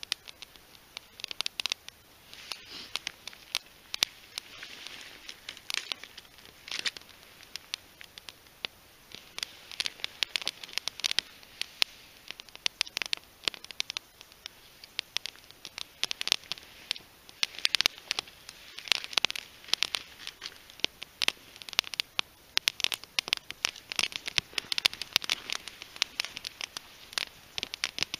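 Small fire of split green western red cedar heartwood kindling crackling, with many sharp, irregular pops and snaps, several a second.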